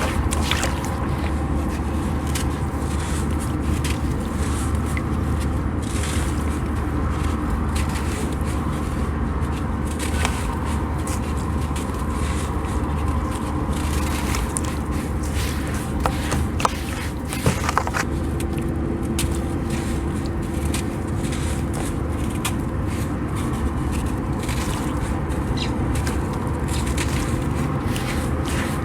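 Crumbly sand being crushed in a little water: scattered gritty crackles and small cracks, over a steady low hum.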